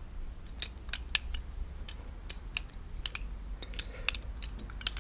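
Boker Plus balisong trainer being handled: its metal handles and pivots give irregular sharp clicks and clacks, about fifteen of them, some in quick pairs.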